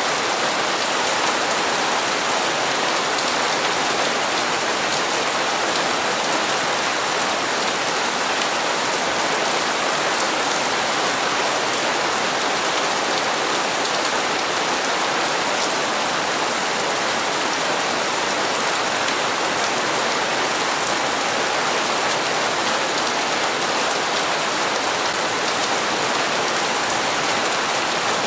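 Steady rain falling on hard surfaces, an even hiss of countless drops with no let-up.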